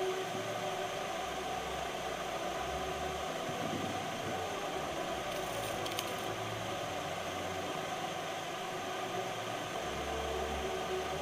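Steady hiss of background noise, with faint low tones coming and going and a single sharp click about six seconds in.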